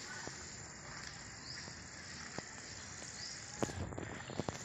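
Steady outdoor background with a thin high insect buzz; about three and a half seconds in, a run of footsteps splashing and squelching through a shallow muddy puddle begins and gets louder.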